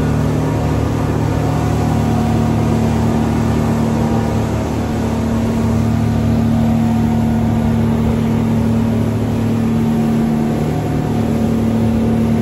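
Speedboat engines running steadily at cruising speed: a constant low drone with an even hiss over it.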